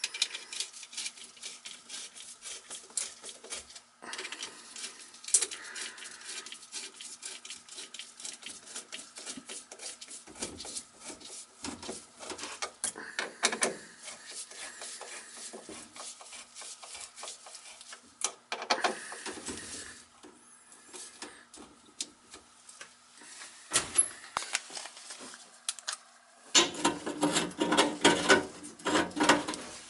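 A stainless band clamp on a PVC drain pipe being tightened with a small hand driver: uneven spells of quick clicking and scraping as the worm screw turns. Near the end comes louder, denser rubbing and clatter as a gloved hand works at the sink's drain fitting.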